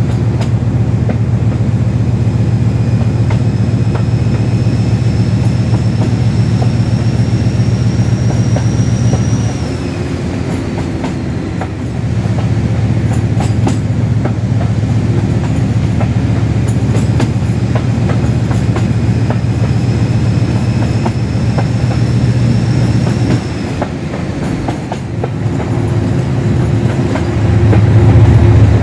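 Class 56 diesel locomotive's Ruston Paxman engine working under power: a deep steady throb with a high-pitched whine that climbs slowly as it accelerates. The power eases off about ten seconds in and again near the end, the whine falling away each time, before the engine picks up again. Wheels click over the rail joints underneath.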